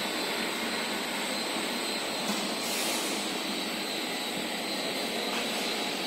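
Steady industrial machinery noise in a factory hall: a constant rushing hum with faint high steady tones over it.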